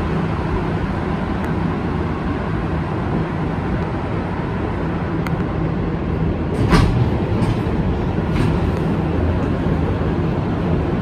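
Rubber-tyred Montreal Metro train running into a station and slowing to a stop, heard from inside the car as a steady running noise with a low motor hum. A short, sharp burst of noise comes about two-thirds of the way through, with a few light clicks around it.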